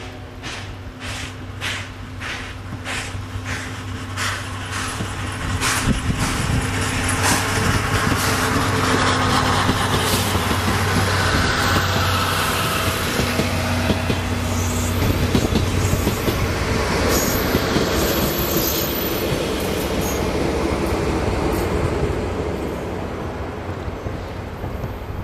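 C11 steam locomotive approaching with its exhaust beating about twice a second, then its passenger coaches and a diesel locomotive at the rear rolling past in a loud steady rumble of wheels on rail, which fades near the end as the train draws away.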